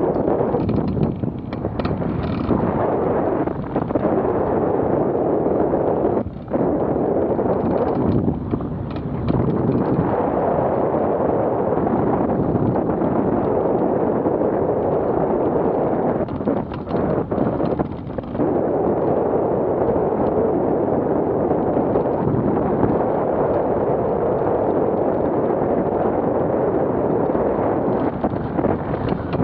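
Wind rushing and buffeting against the microphone of a camera mounted on a hang glider in flight: a loud, steady rushing noise with a few brief lulls.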